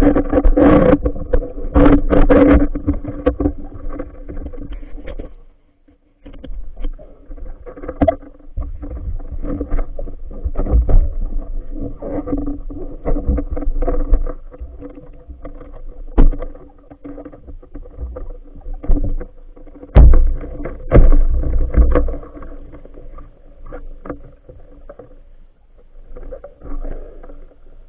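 Muffled underwater noise heard through a camera housing while a diver swims with a speargun: water rushing and knocking against the housing over a steady low hum. The sound drops out briefly about six seconds in, and a few heavy thumps come near twenty seconds.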